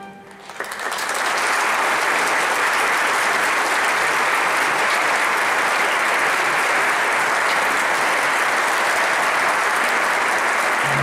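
Audience applause starts about half a second in, right after the orchestra's final chord has died away, and swells within a second to steady clapping.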